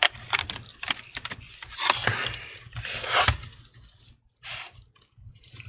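Small clicks, taps and two brief scraping rustles from hands working on a laptop's display panel: the display cable's tape being pressed down and the replacement LCD panel being set into the lid.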